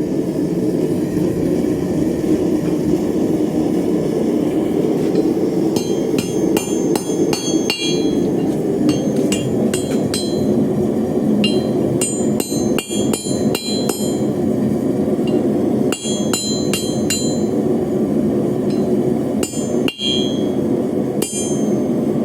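Hand hammer striking steel on an anvil while forging tongs, the blows ringing and coming in quick runs from about six seconds in, over a steady low roar.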